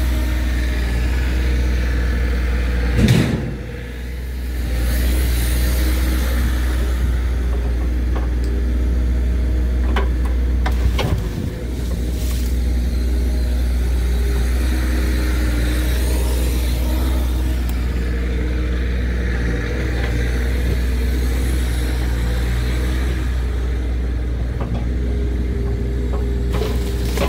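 Bobcat E35 mini excavator's diesel engine running steadily under load as it works its grapple, with a heavy thump a few seconds in and another about eight seconds later.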